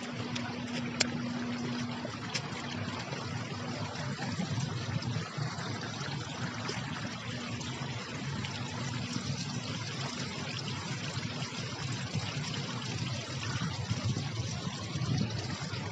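Water trickling and splashing down a small stepped stone channel of a garden water feature, a steady hiss throughout, with a sharp click about a second in.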